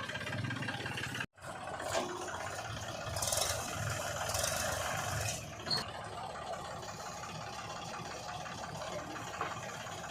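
Diesel engine of heavy earthmoving machinery running steadily, with the sound dropping out for an instant about a second in.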